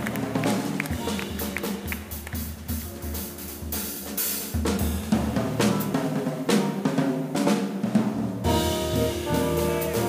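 Jazz drum kit played busily, with snare, bass drum and cymbal strokes over low instrument lines. About eight seconds in, the trombone and the band come in with held notes.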